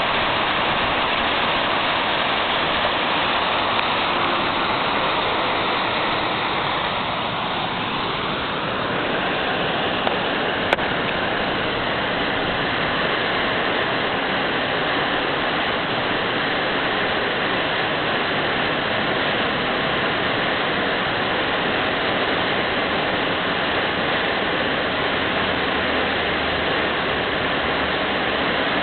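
High, muddy creek water rushing over a rock ledge in whitewater rapids: a steady, loud rush.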